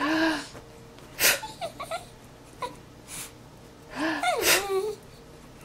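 Miniature dachshund making whiny, moaning vocalizations in short pitched cries, with a couple of short sharp huffs of breath in between.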